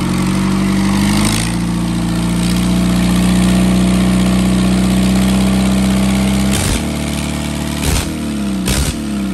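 Isuzu 4BD1 four-cylinder non-turbo diesel engine running on a test stand, its speed rising a little about a second in and then holding steady. About six and a half seconds in, its speed drops and it slows down, with a few sharp knocks.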